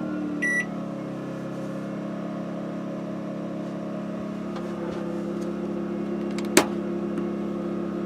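Duromax XP2000EH inverter generator running steadily under load. There is a short electronic beep about half a second in and a single sharp click near the end.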